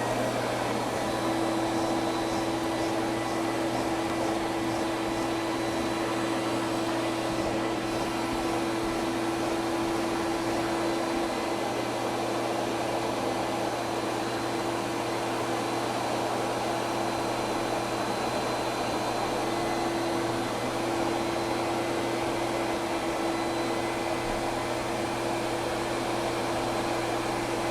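Turmix Robot water-filtration vacuum cleaner running steadily at full speed with a constant motor whine, its upholstery brush being worked over a sofa seat.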